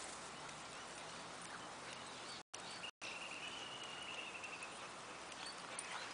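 Faint open-air background hiss, with a faint thin high tone lasting about a second and a half just after the middle. The sound cuts out completely twice, very briefly, a little before the halfway point.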